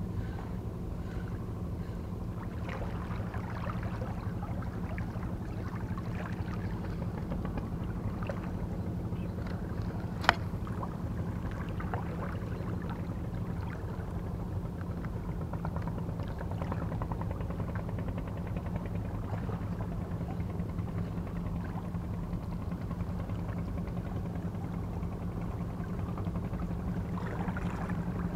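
Steady low hum of a running engine, with a single sharp click about ten seconds in.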